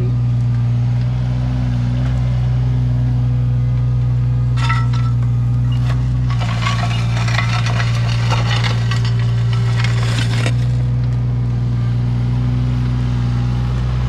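Mini excavator's diesel engine running steadily under load while its bucket digs into hard, compacted ground. A short crunch comes about five seconds in, then a longer stretch of scraping and crunching lasting about four seconds.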